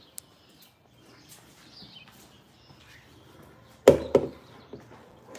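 Two sharp knocks in quick succession about four seconds in, after a faint click near the start; otherwise only low background noise.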